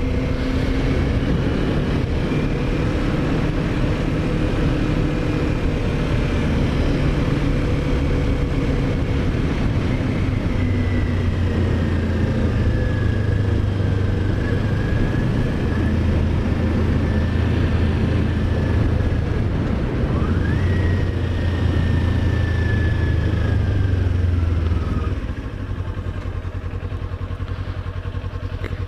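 Kawasaki Ninja 400's parallel-twin engine running under way, with wind and road noise, while riding a stretch of gravel road. The engine pitch drifts slowly, rises quickly once about two-thirds of the way through, and the sound drops quieter near the end.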